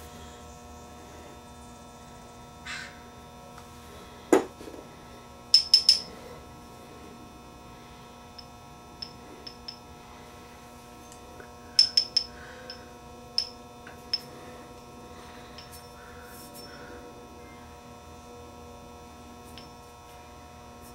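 Sharp metallic clicks and a knock as a reel-to-reel deck's capstan flywheel and tools are handled while its bearing is oiled, in small clusters about four to six seconds in and again around twelve to fourteen seconds in, over a steady faint hum.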